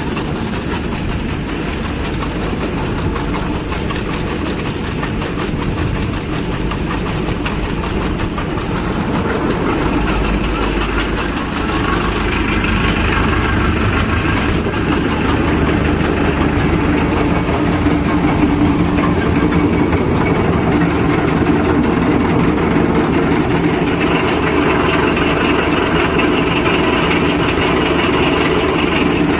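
Panesar mini tractor combine harvester running steadily, engine and harvesting machinery together, growing somewhat louder about halfway through.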